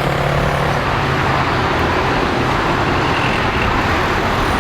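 Steady, loud jet-engine rumble and hiss from airliners running near the runway, with a low hum that fades over the first second or two.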